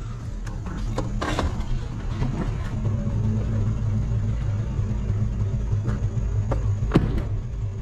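Pickup truck engine running as the truck drives slowly along the road, a steady low rumble, with a sharp knock about a second in and another near the end.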